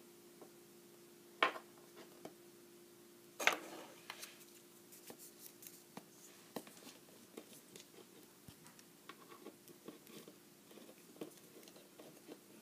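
Small plastic toy figures being handled and set down: two sharper clicks about a second and a half and three and a half seconds in, then a run of light taps and ticks, over a faint steady hum.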